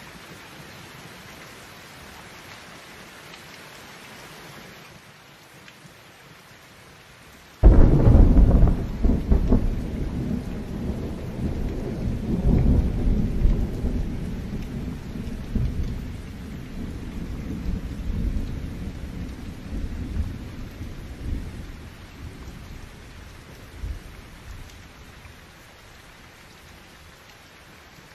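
Heavy rain falling steadily. About eight seconds in, a sudden loud clap of thunder breaks and rolls on as a deep rumble for over ten seconds, fading back under the rain, with a smaller crack near the end.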